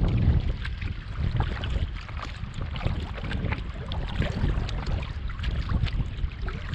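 Wind rumbling on the microphone over water splashing and lapping around a canoe being paddled, with many small irregular splashes and ticks.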